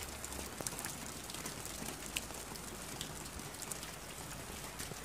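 Steady rain falling, an even hiss with scattered sharp ticks of single drops.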